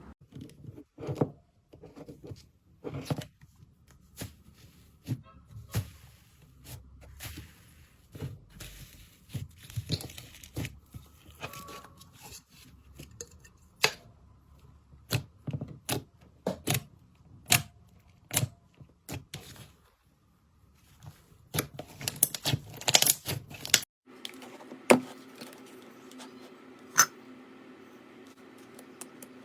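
Slime being worked by hand, giving irregular crackles and sharp pops. A dense run of crackling comes near the end, then a change to sparser pops.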